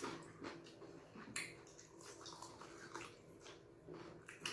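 Two people eating fufu and Ghana light soup with their hands: faint, irregular wet mouth smacks and chewing clicks.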